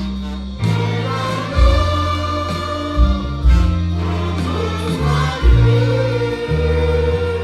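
Gospel music played live: a choir singing over a band, with a moving bass line and a drum beat.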